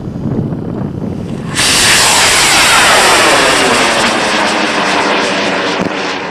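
High-power rocket motor lighting at liftoff about a second and a half in: a sudden, loud rushing noise that sweeps down in pitch and slowly fades as the rocket climbs away.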